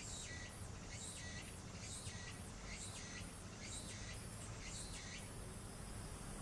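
An insect chirping in a quick, even rhythm, a few chirps a second, stopping about five seconds in, over a low steady rumble.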